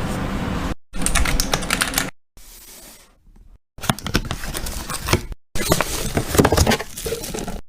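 Quick clicking and tapping of small hard items being handled, in several short clips cut together with brief silent gaps.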